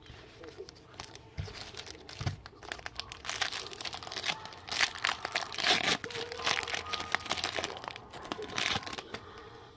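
Plastic trading card pack wrapper being crinkled and torn open by hand, an irregular run of crackling and rustling.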